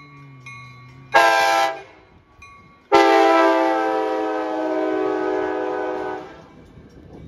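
Horn of an ACE commuter train's leading cab car at a level crossing: a short blast about a second in, then a long blast of about three seconds. The crossing bells ring faintly at the start.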